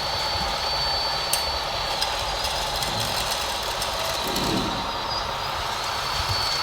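Small electric motors of radio-controlled model construction machines running, with a thin, steady high whine over a constant rushing noise; the whine drops out around five seconds in and returns about a second later.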